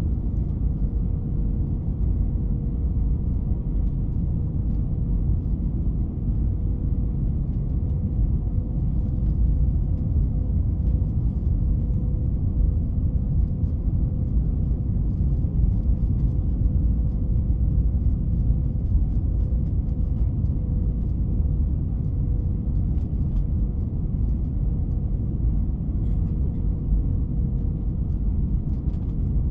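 Cabin noise of an Airbus A321 on final approach with flaps extended: a steady low rumble of engines and rushing air, with a faint steady whine through it.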